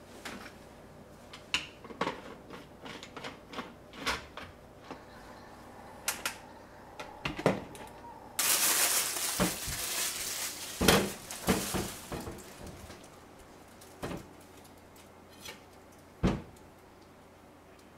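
Kitchenware being handled: clicks and knocks of a metal kettle, lids and pots, with a loud hiss lasting about four seconds halfway through. Near the end, a single knock of a knife on a wooden cutting board.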